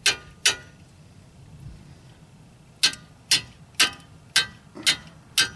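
A hammer striking metal in sharp, ringing blows, beating a new brake part into place because it is too tight a fit. There are two blows, a pause of about two seconds, then six more at about two a second.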